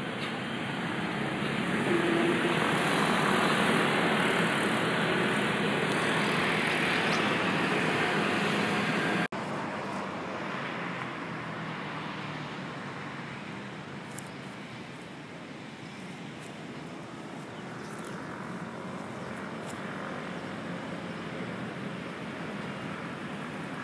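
Steady outdoor noise of distant city traffic. It is louder for the first nine seconds, then drops suddenly at a cut and carries on quieter.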